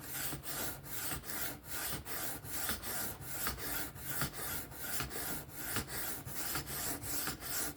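Knife blade of 3V steel stroked back and forth freehand across a 600-grit sharpening stone: steady rhythmic scraping of about two to three strokes a second as metal is taken off the edge.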